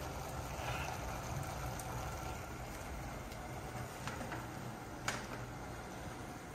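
Steady cooking noise from a two-burner gas stove, with spaghetti boiling in a steel pot and ground pork starting to cook in a frying pan. Two light knocks come about four and five seconds in, the second one louder.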